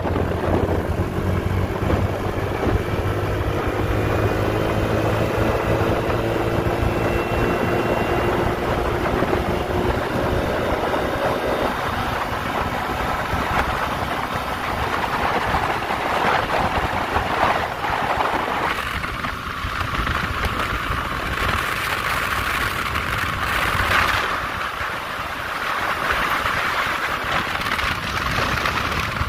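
Honda Navi scooter's 109cc single-cylinder engine pulling at full throttle, its note rising steadily in pitch over the first dozen seconds as it gains speed. Wind rushing over the microphone grows stronger in the second half.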